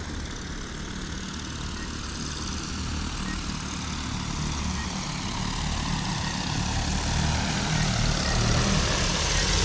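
DJI Agras T40 agricultural drone's rotors humming as it flies in low, growing steadily louder as it comes closer.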